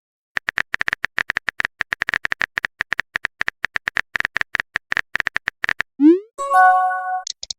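Rapid, uneven clicking of a phone-keyboard typing sound effect for about five and a half seconds. Then a quick rising pop and a short multi-tone chime, like a message-sent notification.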